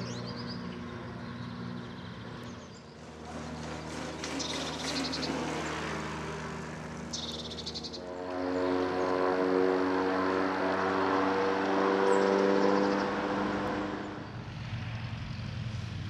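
A motor engine running steadily as it passes, growing louder from about eight seconds in and fading again near fourteen seconds.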